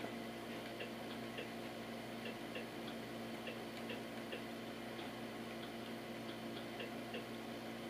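Soft, irregularly spaced ticks, two or three a second, from scrolling through a video game console's on-screen menu with a controller, over a steady low electrical hum.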